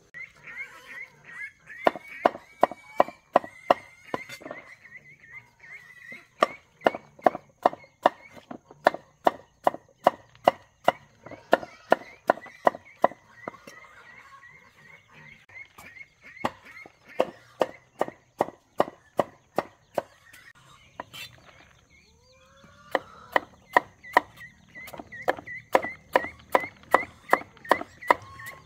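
Steady rhythmic chopping with a blade, about three sharp strokes a second, stopping for a couple of seconds about two-thirds of the way through before starting again.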